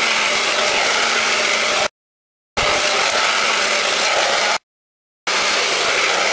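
Handheld blow dryer running steadily at full blast with a whooshing airflow and a faint motor whine. It comes in blocks of about two seconds that cut off abruptly into dead silence twice and then resume.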